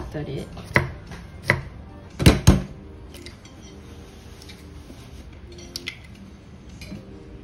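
A kitchen knife chopping garlic on a thick wooden chopping block: five sharp knocks in the first two and a half seconds, the last two the loudest. Later come a few light clicks as an egg is cracked into a ceramic bowl.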